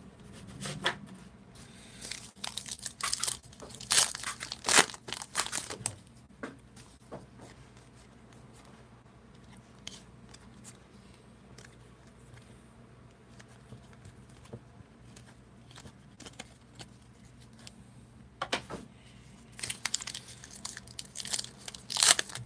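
Foil wrapper of a Diamond Kings baseball card pack crinkling and tearing open, in two spells: one in the first few seconds and another from near the end. In between there are only a few faint ticks of cards being handled.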